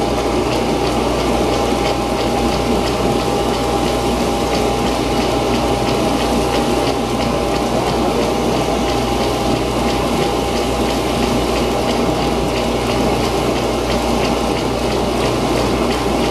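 1933 working model Fourdrinier paper machine running: a steady wash of water and pulp slurry over the pump and drive noise, with a steady whine and light regular ticking from the mechanism.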